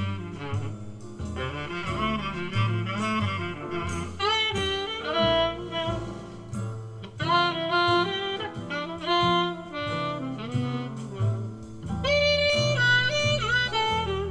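Jazz music with a melody line over a moving bass line, played back through an old passive loudspeaker whose crossover network has been fitted with Orange Drop film capacitors.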